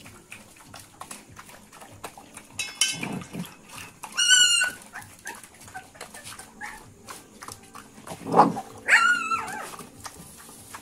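Puppy whining: two short, high-pitched, wavering cries, about four seconds in and again near nine seconds. A louder, lower yelp comes just before the second cry.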